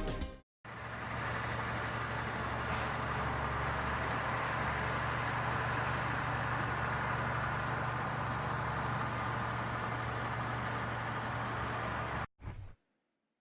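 Steady low rumbling noise with a constant hum underneath, starting just after a music clip cuts off and stopping abruptly about a second before the end.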